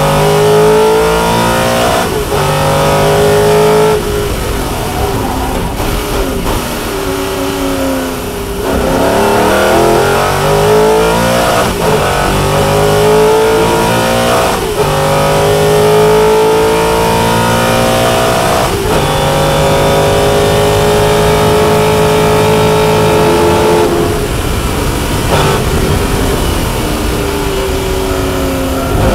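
A Lola T70 MK3B's Chevrolet V8 racing engine heard from inside the cockpit, accelerating hard at full throttle: its note rises again and again, cut by a short break at each upshift. Near the end the note breaks up and falls as the car slows for a corner.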